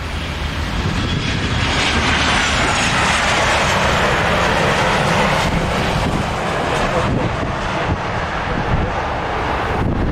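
Boeing 737-800 jet airliner landing, its CFM56 engines loud. The noise swells about a second and a half in, eases a step around halfway as the jet rolls out after touchdown, and drops off near the end.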